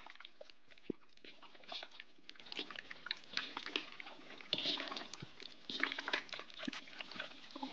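Raw chicken pieces coated in seasoning and browning sauce being squished and turned by hand in a stainless steel bowl: irregular wet squelching and small smacks, busier after the first couple of seconds.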